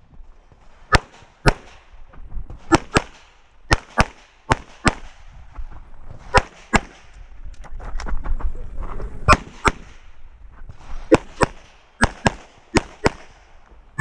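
Rapid pistol fire from a Production-division competition handgun, the shots mostly in quick pairs about half a second apart. There is a longer break a little past the middle while the shooter moves to the next position.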